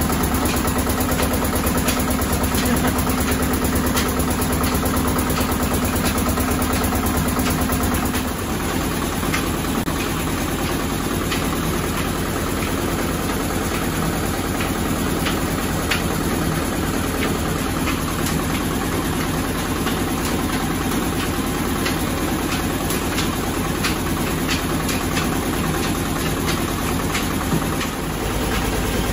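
A screw-type oil expeller press running steadily in an oil mill: a continuous loud mechanical hum and rattle with a steady low tone and fine regular ticking. The pitch and texture shift once about a third of the way through and again just before the end.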